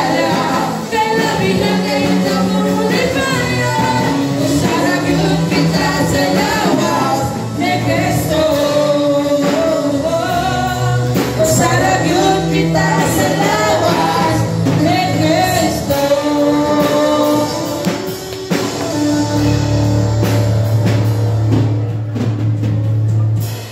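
Live church band with electric guitars and drums playing a worship song with a lead singer. The music cuts off suddenly at the very end.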